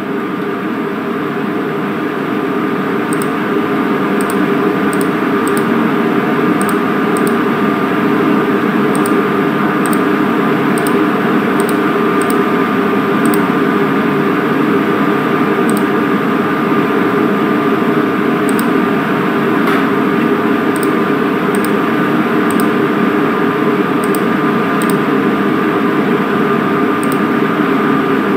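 Steady machine hum and whir with a constant tone, with faint light clicks scattered through.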